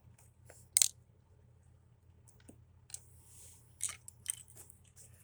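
Metal hand tools clinking as they are handled in a tool bag: one sharp clink a little under a second in, then lighter clicks and a brief rustle.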